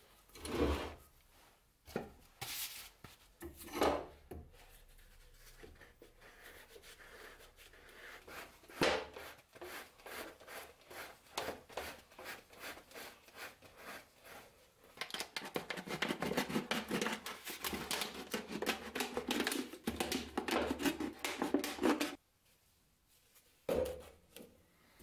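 A few knocks as a bench vise is tightened on a marker pen, then a clear plastic bottle scraping as it is turned against the marker tip. For several seconds in the second half, the thin plastic bottle crackles in a dense run of rapid clicks as it is cut along the marked line.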